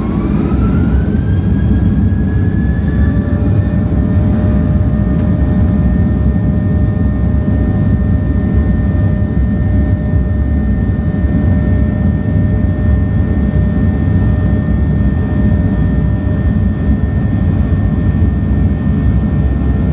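Boeing 737-800's CFM56-7B turbofan engines at takeoff thrust on the takeoff roll, heard from inside the cabin. It is a loud, steady rumble, and the engine whine rises in pitch over the first two seconds, then holds steady.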